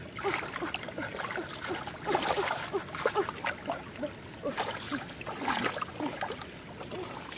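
Water splashing and sloshing in an irregular series of small splashes, with short gurgling chirps.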